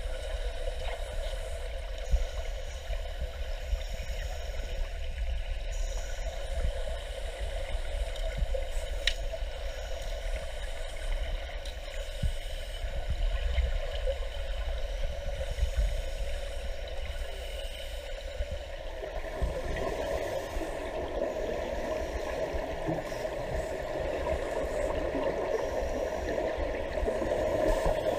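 Muffled underwater pool sound: scuba divers' regulator exhaust bubbling over a steady hum. The sound grows fuller about two-thirds of the way through.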